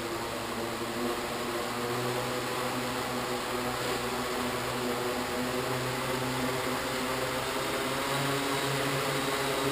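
Quadcopter's MK brushless motors and propellers spinning on the ground after arming, a steady hum with several level tones that grows slowly louder ahead of take-off.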